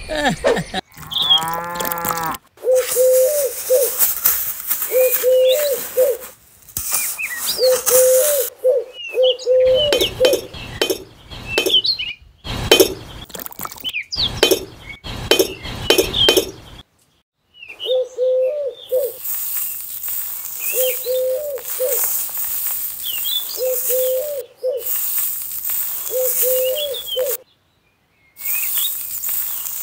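Birds chirping with short animal calls repeating every couple of seconds, over clinks and scraping from small bricks and tools. The sound breaks off abruptly several times.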